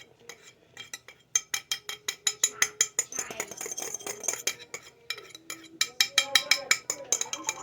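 A metal whisk clinking against a bowl in quick, repeated strokes, about five a second, as liquid is worked into the dry cookie mix. The strokes pause briefly about five seconds in, then start again.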